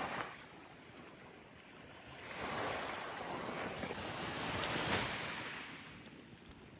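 Sea waves washing ashore: a swell of surf noise rises about two seconds in and fades away near the end.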